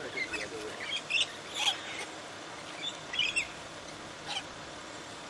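Wild rosellas calling: about half a dozen short, high chirps and squawks, each separate and spread through.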